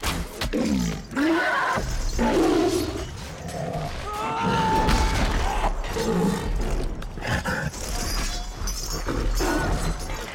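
Film battle sound mix: a cave troll's roars and growls among repeated crashing, shattering impacts.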